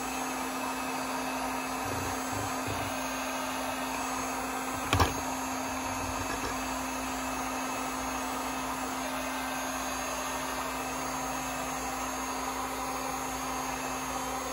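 Handheld electric heat gun running: its fan blowing steadily with a constant hum. A single sharp knock about five seconds in.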